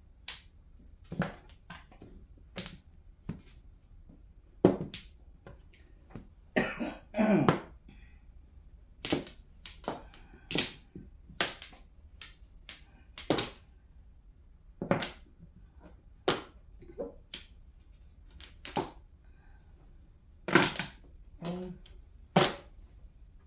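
Mahjong tiles clacking on the tabletop as players draw and discard. The clacks are sharp and come one at a time, about once a second at an uneven pace, with a short cluster of knocks about seven seconds in.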